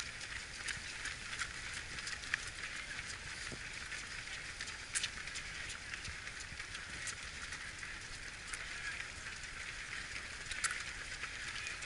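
Footsteps of many runners on an asphalt road: a steady rush of overlapping footfalls, with a few sharper shoe slaps standing out.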